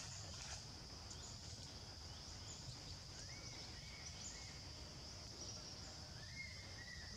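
Insects droning steadily at a high pitch in tropical forest, with a few faint, short chirping calls about three seconds in and again near the end.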